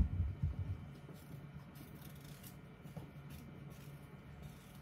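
A small kitchen knife peeling a potato by hand: faint scraping and cutting sounds. A sharp knock comes right at the start, then a few soft thumps, all over a steady low hum.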